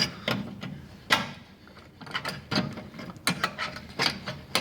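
Irregular clicks and rattles of a range power cord's wires being pushed through the hole in the range's sheet-metal back, coming quicker in the second half.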